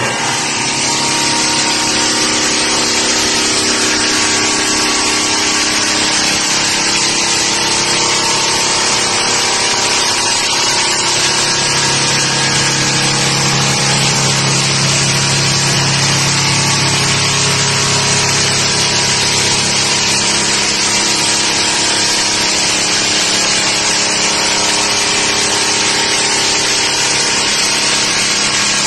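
Heavy-duty 300 mm drum floor sander running, its abrasive drum grinding the finish off wooden floorboards: a steady, loud sanding hiss over the electric motor's hum. The hiss comes in right at the start, as the drum meets the floor.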